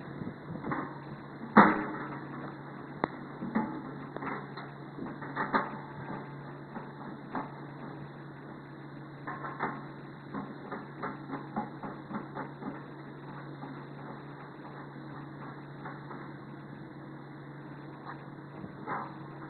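Steel brackets and plates of a sweeper's brush housing being handled and bolted on: irregular metal clanks and knocks, one loud knock about a second and a half in and a run of small clicks around ten seconds in, over a steady low hum.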